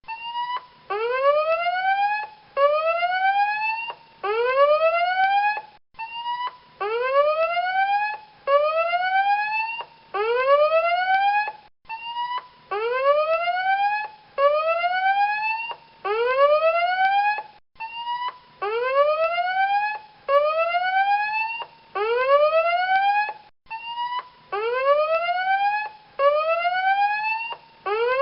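Electronic alarm siren playing the 'Costa' alarm tone: a short steady beep followed by a rising whoop, repeated in sets of three with a brief break after each set, roughly every six seconds.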